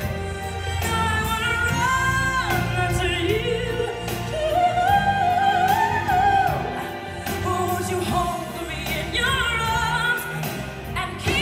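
A female voice singing a big pop ballad over a backing track, with long held notes, some with vibrato.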